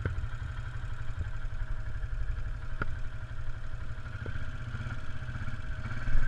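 ATV engine idling, a steady low rumble picked up by the handlebar-mounted GoPro, with a light click about three seconds in.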